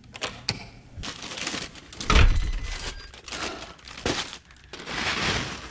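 Thin plastic delivery bag rustling and crinkling as it is handled and opened by hand, in irregular bursts, with a thump about two seconds in.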